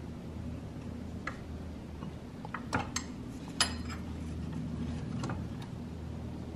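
Combination wrench turning the brake caliper bracket bolts, with several scattered sharp metal clicks and clinks as the wrench is worked and reset on the bolt, over a steady low hum.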